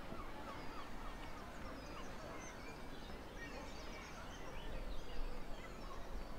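Birds calling: a quick run of short repeated calls in the first second, then scattered chirps, over steady outdoor background noise.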